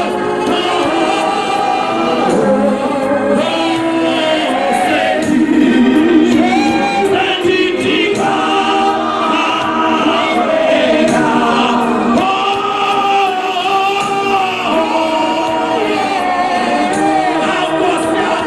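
A congregation singing a gospel hymn together in harmony, many voices holding long sustained notes.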